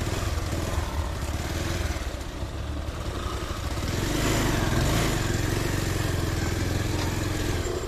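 Small motorbike and scooter engines running on a rough dirt track, with a scooter's engine rising in level about four seconds in as it is ridden and pushed up over the rocks.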